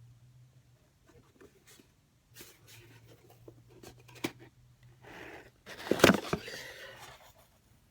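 A mailed package being opened by hand: scattered rustling, scraping and clicks of the packaging, with one loud burst of noise about six seconds in.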